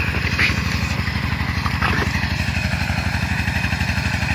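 A small engine running steadily at an even, fast beat, with a couple of faint knocks over it.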